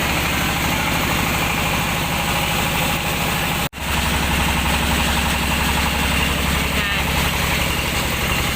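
Engine of a mobile rice-milling machine running steadily with a fast, even beat. The sound cuts out abruptly for an instant a little under four seconds in, then carries on.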